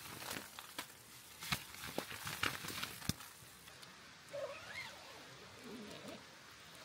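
A camper handling gear and moving about at a tent: a run of sharp clicks and knocks, then, as he crawls in under the fabric, a short squeak rising in pitch about four and a half seconds in.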